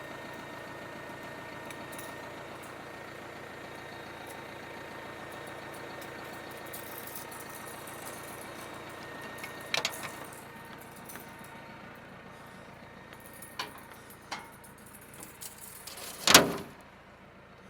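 Tractor engine idling steadily, dropping away about ten seconds in. After that come a few metal clicks and knocks, with one loud clunk near the end.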